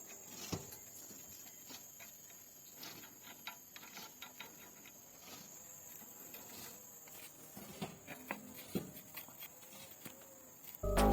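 Faint scattered clicks and light taps over a steady high hiss. Loud music comes in near the end.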